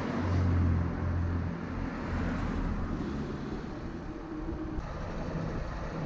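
A motor vehicle running close by over steady road noise, with a strong low engine hum in the first second and a half.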